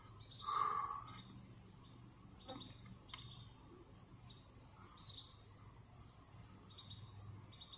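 A bird calling: a short rising chirp repeated about every four seconds, the first the loudest, with fainter short calls in between over a steady low background hum.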